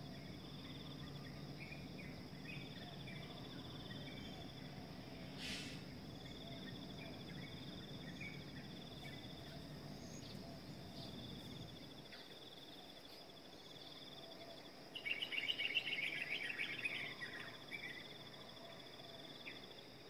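Evening insect chorus: a steady high-pitched shrill under a pulsing trill that comes in phrases of a few seconds, with scattered bird chirps. About fifteen seconds in, a louder burst of chirping calls lasts about two seconds. A faint low rumble fades out around the middle.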